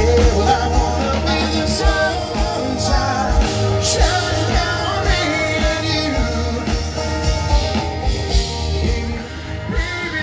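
Live rock band playing through a PA, with a singer over guitars and a steady drum beat.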